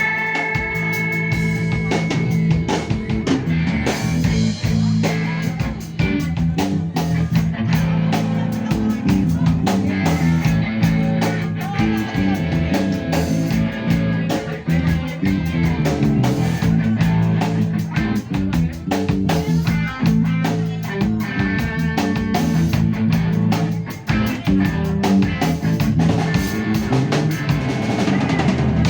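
Band playing a blues-rock number on guitar, bass and drum kit, the drums hitting steadily over a moving bass line.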